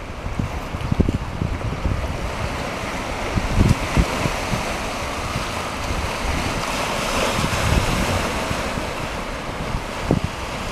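Small waves washing onto a rocky shore, the surf swelling in the middle. Gusts of wind buffet the microphone throughout.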